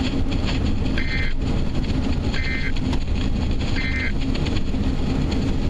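Three short bursts of EAS end-of-message data tones (the NNNN code) from a NOAA Weather Radio broadcast, each a buzzy warble about a third of a second long, about 1.4 s apart. They sound over a steady background of radio noise.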